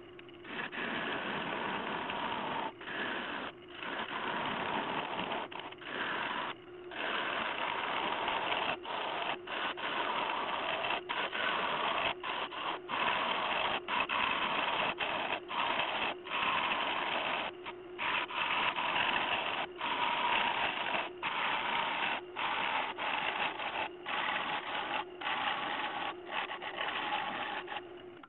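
Bowl gouge cutting a spinning dead-ash live-edge bowl on a wood lathe: a steady shearing and whirring, broken every second or so by short gaps as the tool comes off the wood.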